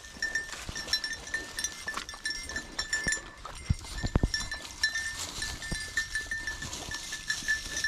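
Beagles drinking and wading at a shallow creek. A faint high tinkling repeats irregularly throughout, and a few low thumps come about four seconds in.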